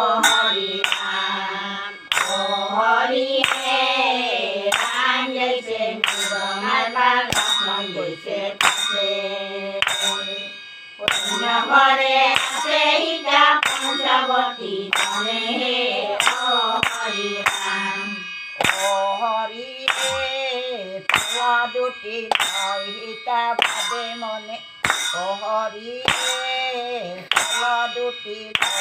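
A group of older women singing Assamese devotional naam together. They keep time with sharp hand claps about every three-quarters of a second, with a short break in the singing about ten seconds in.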